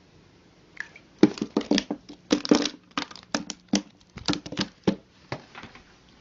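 A pet scrambling and knocking about indoors: an irregular clatter of sharp thuds and scrabbling that starts about a second in and runs for some five seconds.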